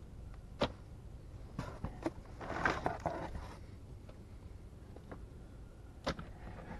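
Things being rummaged through in a cardboard box: a few sharp clicks and knocks, with a rustling stretch about two and a half seconds in, over a low rumble.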